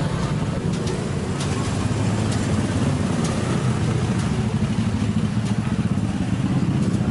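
Small motorcycle engines, among them a motorcycle-with-sidecar tricycle, running at low speed and passing, a steady low engine hum with a few light clicks now and then.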